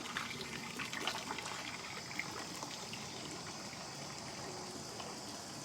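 Water trickling steadily in a small garden pond.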